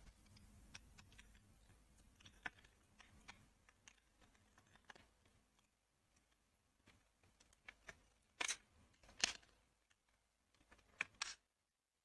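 Faint metallic clicks and taps of Honda CD 70 drum brake shoes and their return springs being pressed onto the brake backing plate by hand, a few sharper clicks coming close together in the last third.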